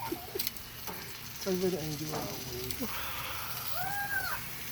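Food sizzling on a barbecue grill, a steady hiss, with short bits of voices talking over it.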